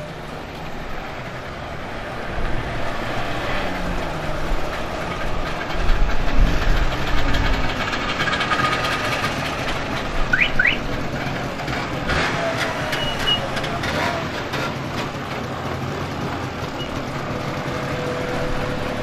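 Classic East German cars pulling away one after another at low speed, their engines rising and fading as each passes close by, the loudest about six seconds in. Among them are a Trabant convertible's two-cylinder two-stroke and a Wartburg 353's three-cylinder two-stroke, heard as a rapid ticking exhaust later on.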